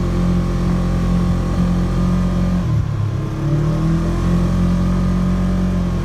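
Side-by-side UTV engine running under way in four-wheel drive through deep snow, a steady drone. About three seconds in the engine note drops briefly, then climbs back up in pitch and settles.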